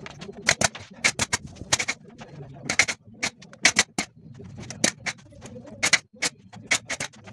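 Pneumatic nail gun firing again and again, driving nails into wooden bed slats: many sharp shots in irregular succession, often in quick pairs.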